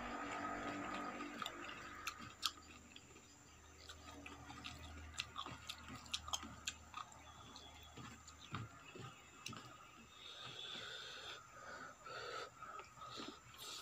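Close-miked chewing of a mouthful of rice and vegetable sabji, with scattered sharp clicks, while fingers mix rice and curry on a steel plate.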